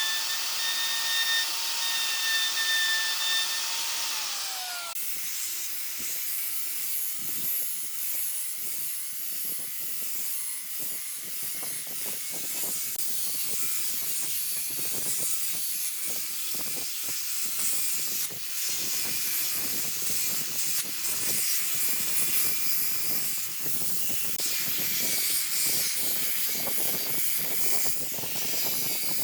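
An electric power tool working wood gives a steady high whine that drops in pitch and stops about five seconds in. Hissy rubbing and scraping on the wood follows, in irregular strokes.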